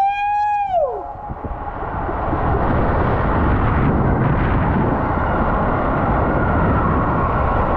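A held, high-pitched shout dies away about a second in, and the loud, steady rush of water and a rider sliding takes over as the rider circles a Whitewater West SuperBowl water-slide bowl.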